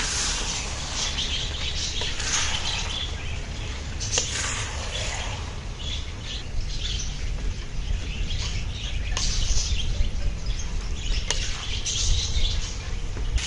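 Rice vermicelli being stir-fried in a large wok, the spatula scraping through the noodles and knocking against the pan a few times, over a steady low rumble. Birds chirp in the background throughout.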